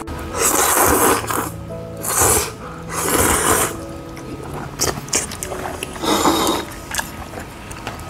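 A person slurping hand-cut kalguksu noodles in seafood broth: four loud slurps, the first and third the longest, over background music.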